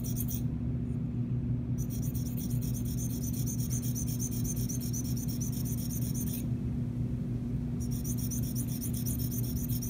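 A flat sharpening stone rubbed in quick, even up-and-down strokes against the blade of a handheld dental curette, a fine rasping scrape. It pauses twice for about a second, once near the start and again about two-thirds of the way through. Under it runs a steady low hum.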